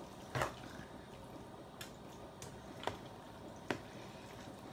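A cooking utensil knocking against the side of a pot four times, roughly a second apart, as meatballs in sauce are chopped up with it; the first knock is the loudest.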